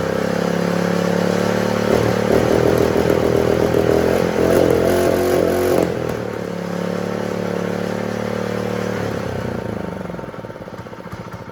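Honda GX120 single-cylinder four-stroke engine running. About two seconds in it speeds up as the throttle is opened, holds higher for a few seconds, then drops back to a lower speed; the sound tapers off near the end.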